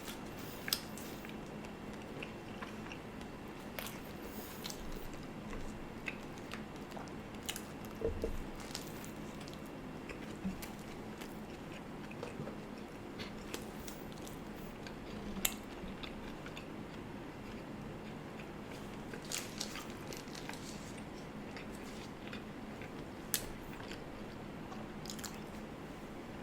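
Close-up eating of a double cheeseburger dipped in sauce: quiet biting and chewing, with scattered sharp mouth clicks and smacks over a faint steady hum.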